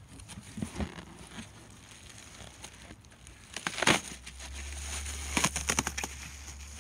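Cardboard and packing material being pulled and crumpled. There is a loud crackling rustle about four seconds in and a quick run of crackles a second or so later.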